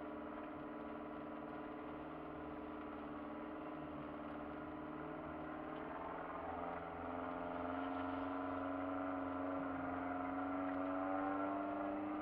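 Off-road 4x4 driving slowly over a snowy, rutted track, heard from inside the cabin: engine and drivetrain running with a steady whine over a low rumble. About halfway through the whine drops a little in pitch and gets louder.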